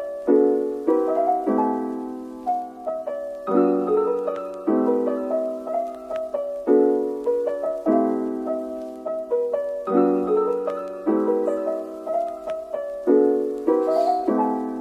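Background piano music: a slow melody over chords, the phrase repeating every three seconds or so.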